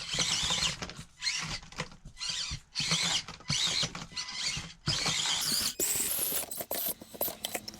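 The SCX24 Deadbolt micro RC crawler's small electric motor and gearbox whining in short stop-start bursts as the throttle is worked, the whine rising and falling in pitch.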